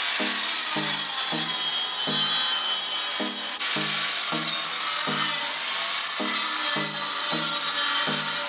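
Continuous harsh grinding noise from a power tool working the steel railing metal, with background music underneath it that carries bass notes about twice a second.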